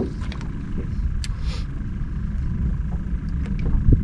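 Wind buffeting the microphone, a steady low rumble, with a few light clicks from the spinning reel being worked and a low thump near the end.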